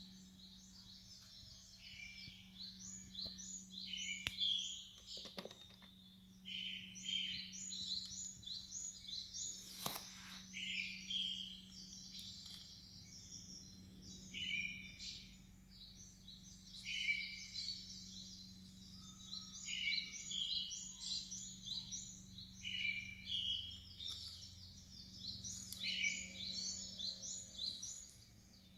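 Songbirds singing, one chattering phrase after another every couple of seconds, over a steady low hum, with a few sharp clicks near the start.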